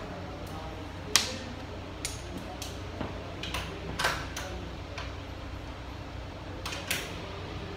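Sharp metallic clicks and clinks at irregular intervals, the loudest about a second in, as a T-handle wrench is turned in bolts on top of an automatic transaxle case. A steady low hum runs underneath.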